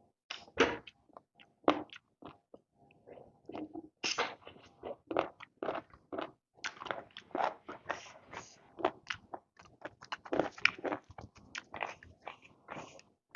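A person eating close to the microphone: biting and chewing with irregular crunchy, wet mouth sounds and smacks, pausing briefly before starting again.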